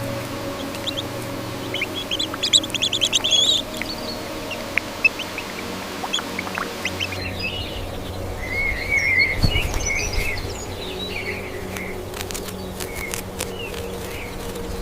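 Birds chirping and twittering in short bursts, over a steady low hum.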